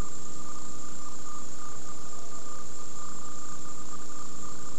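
Steady hum and hiss with several constant tones, high and low, running unchanged throughout.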